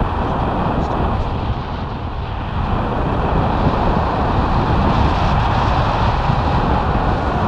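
Wind buffeting an action camera's microphone during a paraglider flight: a loud, steady rushing rumble, heaviest in the lows, that grows slightly about three seconds in.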